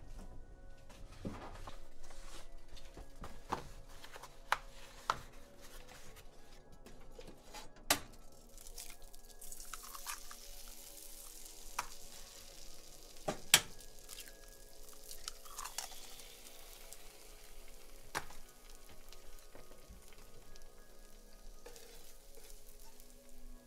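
Eggs frying in a pan: a hissing sizzle that builds from about nine seconds in, with a few sharp clacks of the spatula and pan, the loudest about halfway through. Before the sizzle there are soft kitchen knocks.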